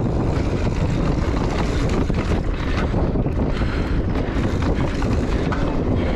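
Heavy wind buffeting on the microphone during a mountain bike descent on dry dirt singletrack, with tyre rumble and frequent short clatters from the bike jolting over bumps.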